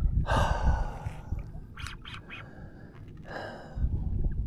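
Water rushing and splashing against a kayak hull as a large hooked fish tows it along, with two louder splashy surges, about the first second and again around three and a half seconds in. Wind rumbles on the microphone underneath.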